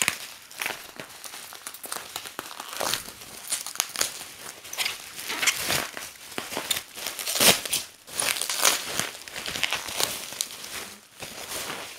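Bubble wrap and paper towel packing being pulled apart and unwrapped by hand: an irregular rustle of plastic and paper with many sharp crackles, loudest about halfway through.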